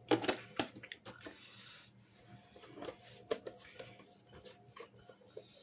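Blue cleaning liquid finishing its pour from a plastic cup into a plastic tub of sponges: a quick cluster of sharp clicks and splashes at the start, a short hiss a second in, then scattered faint clicks and crackles.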